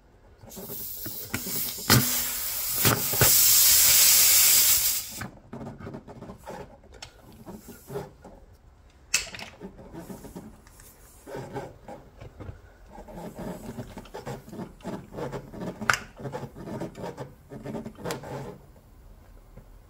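Air hissing out of a puncture in a pressurised car tyre for about four seconds as the tool is drawn from the hole, then cutting off suddenly. Afterwards scattered clicks and rubbing as fingers work a repair plug into the hole.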